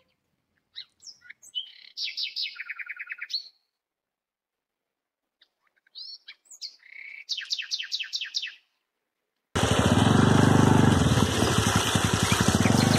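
A songbird sings twice, each phrase a few chirps running into a fast trill of repeated high notes. Then, about three-quarters of the way through, a steady loud rush of water starts suddenly: water gushing from a hand pump spout and splashing onto stones.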